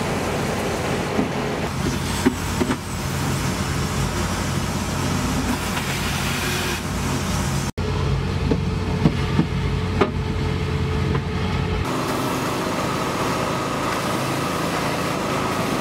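A vehicle engine idling steadily, with a few sharp metallic clicks. About twelve seconds in the engine hum stops and a steady hiss takes over.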